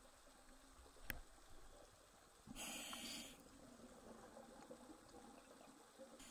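Near silence underwater, broken about two and a half seconds in by one short hiss of a scuba diver's regulator breath, with a faint click about a second in.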